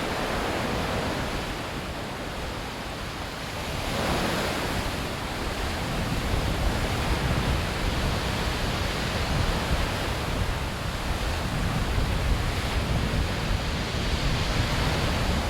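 Calm sea ambience: gentle waves washing on the shore in a steady wash of surf, with a swell about four seconds in and a low rumble building after it.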